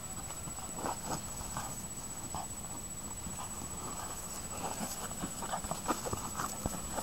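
Cavalier King Charles spaniel nosing, pawing and biting a hollow plastic football on grass: irregular light knocks and scuffs, coming more often in the last few seconds.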